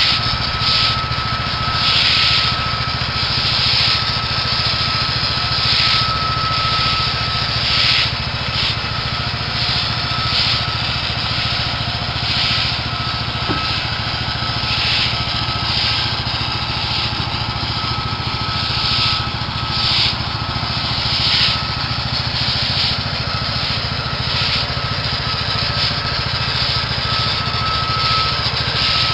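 Small petrol engine running steadily, with a rasping hiss that swells and fades every second or two, as joint sand is worked into a paver patio.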